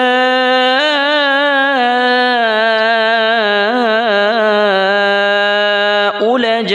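A male reciter chanting the Quran in melodic tilawat style, drawing out one long held note on the opening words of a verse with wavering ornaments in the pitch. It breaks off about six seconds in, and the next phrase begins.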